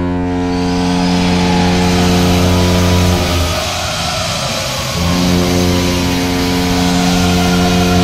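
Anaheim Ducks' goal horn sounding in two long, low blasts, with a break of about a second and a half between them; a deep, fart-like tone.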